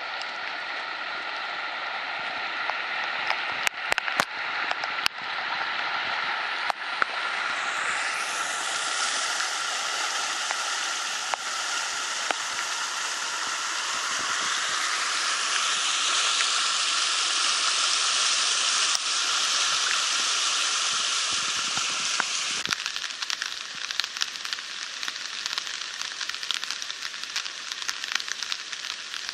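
Floodwater rushing and churning through a swollen creek, a steady rush of whitewater around tree trunks. A few sharp clicks come in the first several seconds, and the sound changes abruptly about three-quarters of the way in.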